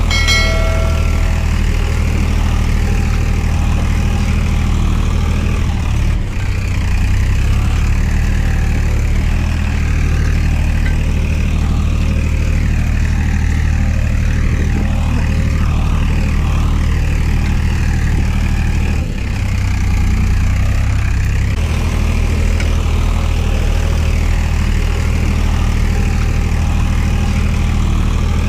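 Tractor engine sound droning steadily at a low pitch, with slight shifts in its tone about six seconds in and again past the middle. At the very start, a short run of chime notes falls in pitch.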